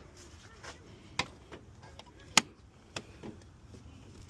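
A few scattered sharp clicks and light taps, the loudest a single crisp click a little past halfway.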